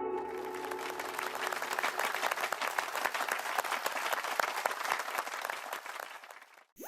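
Crowd applause: many hands clapping densely and steadily, fading out near the end.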